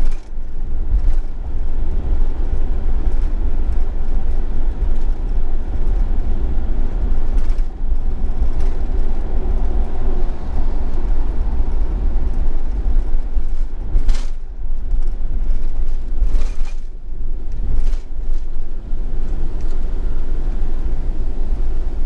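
Camper van driving through a road tunnel: steady road and engine rumble with tyre noise, heaviest in the low end. A few brief louder whooshes come in the second half.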